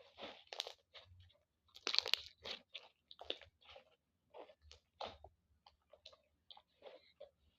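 Slime being squeezed and worked by hand, making irregular crunching and crackling noises, loudest about two seconds in.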